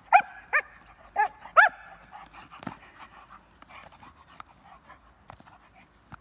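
Belgian Malinois barking four times in quick succession in the first two seconds, aroused by a helper teasing it with a bite rag in bite-work training. After that only faint scuffling.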